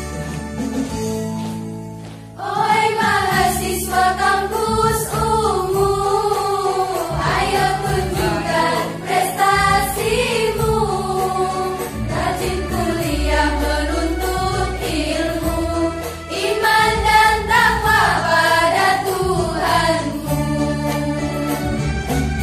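Women's choir singing a song in unison over a steady keyboard-style backing; the voices come in about two and a half seconds in, after a short instrumental lead-in.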